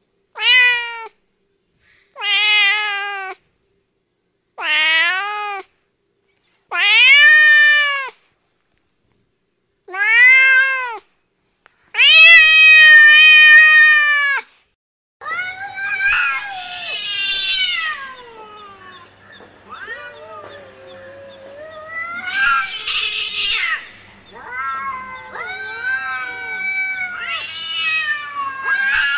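Angry domestic cats meowing and yowling. First come six separate drawn-out meows, each rising then falling in pitch, with short silences between them. About halfway through, a stretch of continuous caterwauling takes over, with overlapping, wavering yowls gliding up and down.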